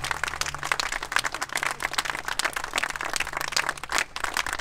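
A small crowd applauding, many hands clapping.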